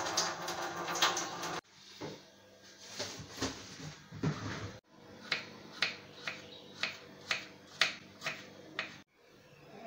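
Knife chopping a carrot on a wooden cutting board, about two sharp, even chops a second through the second half, after a few scattered kitchen handling sounds.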